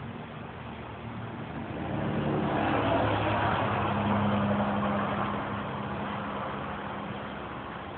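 A motor vehicle passing by: its engine hum and road noise swell up about two seconds in, peak, and fade away over the next few seconds.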